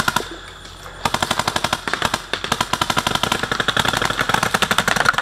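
Paintball markers firing in rapid strings of shots, many per second. There is a brief pause just after the start, then almost unbroken rapid fire from about a second in.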